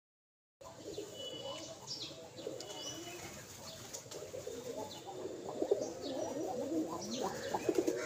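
Rock pigeons cooing, several at once, growing louder toward the end, with short high chirps from small birds and a few wing flaps.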